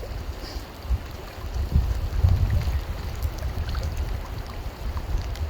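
Gusty wind buffeting the microphone: an uneven low rumble that swells and drops.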